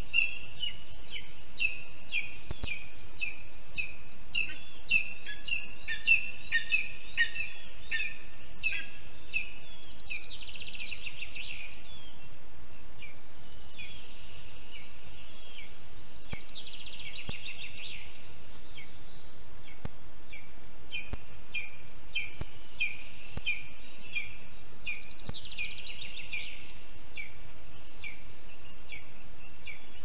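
Lesser spotted eagle calling: a long run of short, high, falling yelps, about two a second. Three stretches of rapid buzzy trilling at the same pitch break into it, over a steady background hiss.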